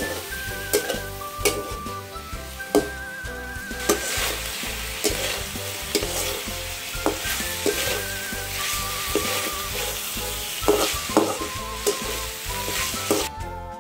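Small shrimp sizzling as they fry in oil in a metal kadai, with a metal spatula scraping and knocking against the pan in irregular strokes, roughly one a second.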